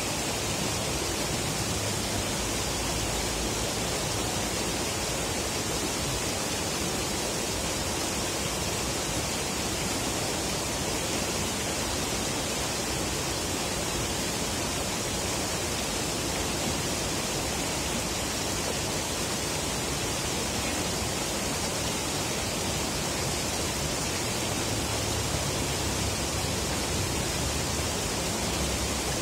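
River water rushing steadily, an even hiss with no change in level.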